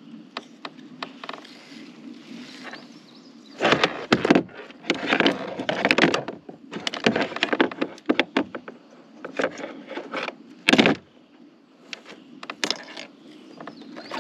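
Irregular knocks, clicks and scrapes from handling a fish and tackle on a kayak, loudest about four, six and eleven seconds in.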